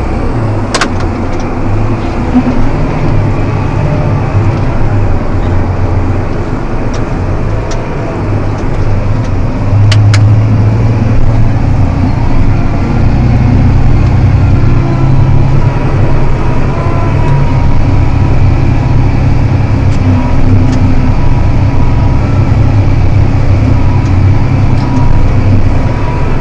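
John Deere 7280R tractor's six-cylinder diesel engine running steadily under load while pulling a plow, louder from about ten seconds in. Two brief clicks break in, one near the start and one about ten seconds in.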